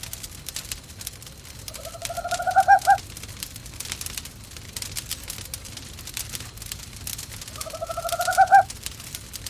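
An owl calls twice, each call a pulsed trill about a second long that rises in pitch and grows louder, over the steady crackle of a wood fire in a fireplace.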